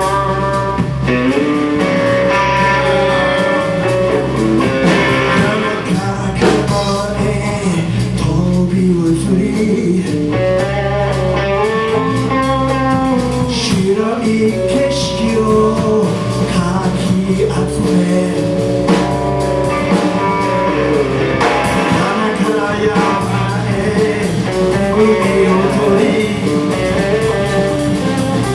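A live band playing a blues-rock number: guitar over a bass line, with singing.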